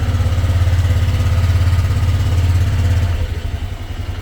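Honda Click 125 scooter's single-cylinder four-stroke engine running after its engine and gear oil change. It drops to a quieter idle about three seconds in.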